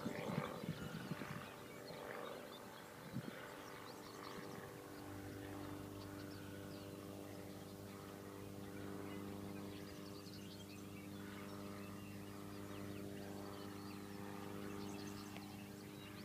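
Distant drone of the Cygnet SF-2A homebuilt light aircraft's piston engine in flight, a faint steady hum that becomes clear about five seconds in; the engine is running strong.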